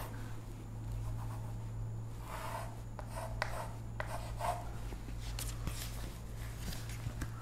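Chalk writing on a blackboard: short scratching strokes and taps as arrows and letters are drawn.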